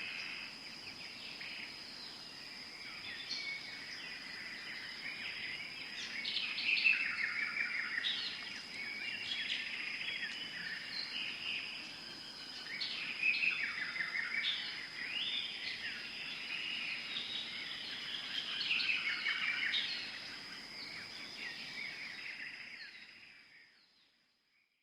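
Birds chirping and twittering busily, with a thin steady high-pitched tone running underneath; it all fades out near the end.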